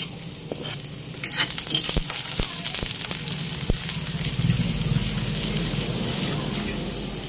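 Minced garlic sizzling in hot oil in a wok, stirred with a metal spatula that clicks and scrapes against the pan. The sizzle swells about a second in and stays strong.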